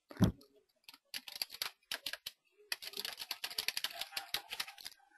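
Typing on a computer keyboard: a few scattered keystrokes, then a fast, steady run of keys from about two and a half seconds in. It is preceded by a single low thump right at the start, the loudest sound.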